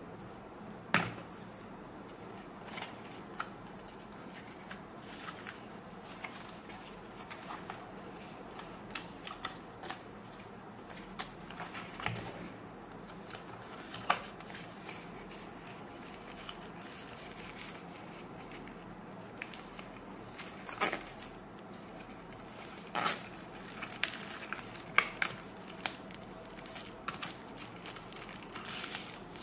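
Handling of paper and plastic packaging while unboxing a wireless charger: a paper leaflet and cardboard box parts shuffled, then a frosted plastic sleeve crinkling. Scattered short taps and rustles, with a few sharper ones.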